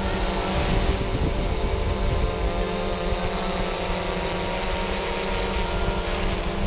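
DJI Phantom quadcopter drone hovering close overhead, its propellers giving a steady hum, with a low rumble of rotor wash on the microphone that comes in suddenly at the start.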